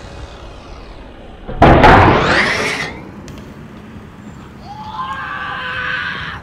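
BMX bike hitting concrete hard: a loud sudden bang about a second and a half in, then about a second of noise rising in pitch. A quieter held, wavering tone comes in near the end.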